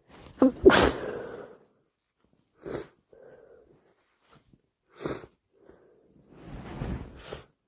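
A person with a heavy cold sneezes once: a short voiced intake rises into a loud burst about half a second in. Two brief sniffs follow, and near the end comes a nose blow lasting about a second.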